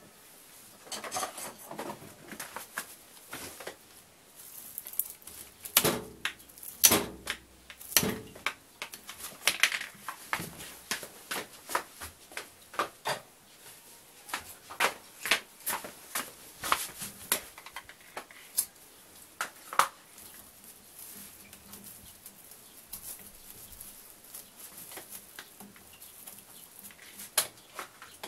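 Hoses at the back of a washing machine being handled: irregular sharp clicks and taps, thickest in the first two-thirds and thinning out later.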